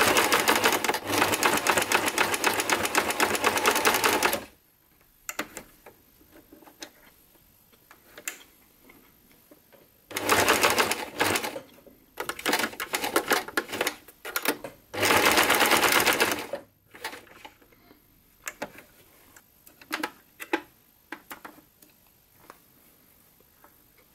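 Electric domestic sewing machine stitching through layers of fabric in three runs: about four seconds at the start, again from about ten seconds in with a few short stop-start spurts, and briefly at around fifteen seconds. Scattered small clicks fill the pauses between runs and the stretch after the last one.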